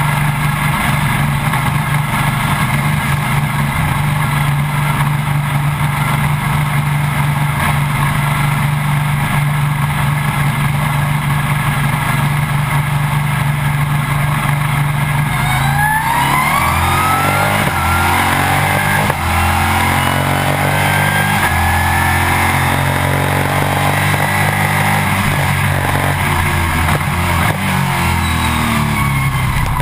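Stock Car Brasil V8 race engine heard from inside the cockpit. For about the first sixteen seconds it holds a steady, unchanging note, as when held on the pit-lane speed limiter. It then revs up hard, the pitch climbing and dropping back several times through upshifts as the car accelerates away.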